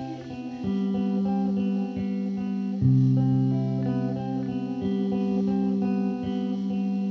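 Psychedelic-folk music: plucked guitar notes picked in a repeating pattern over held low notes, with no singing.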